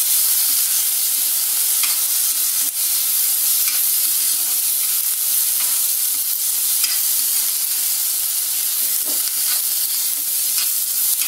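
Chopped onion and tomato sizzling in hot oil in a kadai as they sauté soft, with a steel spatula stirring and scraping against the pan now and then.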